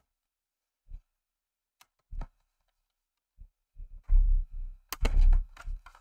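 Plastic case of an ASUS X553S laptop creaking and snapping as the keyboard deck is pried loose around the hinges. A few scattered sharp clicks come first, then a run of louder cracks and knocks in the last two seconds, the sharpest about five seconds in.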